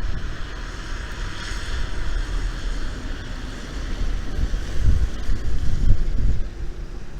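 Gusty wind blowing, a steady hiss with low rumbling buffets on the microphone that swell about five to six seconds in.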